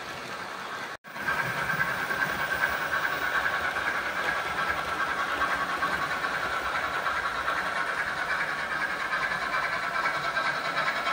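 OO gauge model steam trains running on the track: a steady whir and rumble of the locomotives' motors and the wheels over the rails. It cuts out briefly about a second in, then comes back louder.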